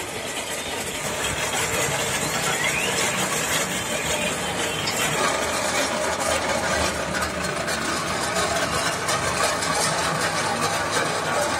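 Homemade electric cement mixer running: its motor and gear drive turn the drum, with sand mortar tumbling inside. The noise is steady throughout.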